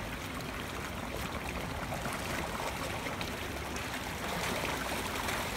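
Creek water spilling over a concrete step into a pool: a steady rush of falling water.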